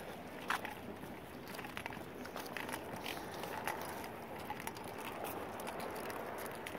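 Footsteps on dry grass and fallen leaves: irregular light crunches and clicks over a steady outdoor hiss, with one sharper click about half a second in.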